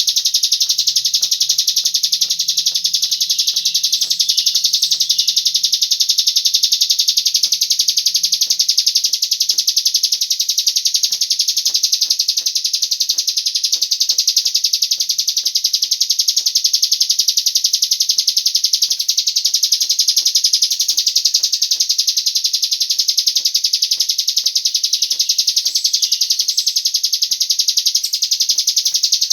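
Recorded cigun bird song played as a lure to set a bird singing: a continuous, fast high-pitched trill that runs on without a break.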